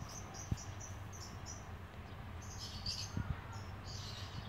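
Small birds chirping: a quick run of short, high chirps in the first second and a half, then more scattered chirps, over a faint low background rumble.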